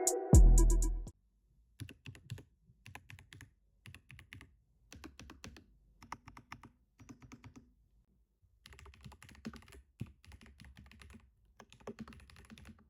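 Typing on a Keychron V6 Max mechanical keyboard with Gateron Jupiter Banana tactile switches: quiet, irregular key clicks in runs, with a pause of about a second midway. A burst of music cuts off about a second in.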